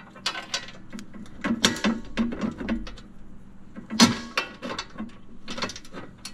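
Irregular metallic clinks and knocks as a steel lift bracket, spacer and bolt are handled and lined up by hand on a Kawasaki Mule Pro FXT's front shock mount, with a sharper knock about four seconds in.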